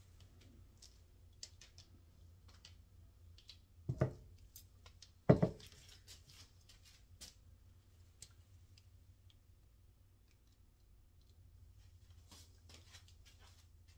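Two sharp knocks about a second apart, from the wooden-framed canvas being handled and tipped on its supports. Scattered light clicks and rustles come from gloved hands and the plastic sheeting.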